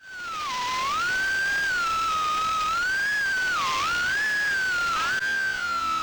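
A 1/8-scale RC buggy's motor whining at high revs, its pitch rising and falling over and over as it speeds up and slows for corners. Near the end it settles to a steadier pitch.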